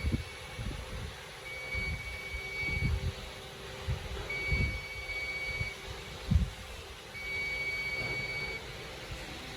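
An electronic buzzer beeping in long, even beeps, each about a second and a half long with a short gap between: three beeps in all. Scattered low handling thumps sound under a steady hum, the loudest thump about six seconds in.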